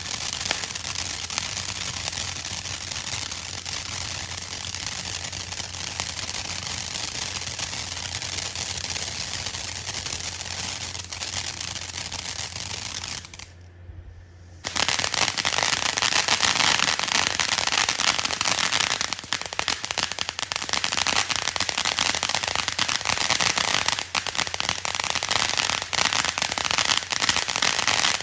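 Consumer ground fireworks crackling and popping in rapid, continuous bursts. The noise drops off briefly about halfway through, then a fresh firework starts, louder and denser in its crackle.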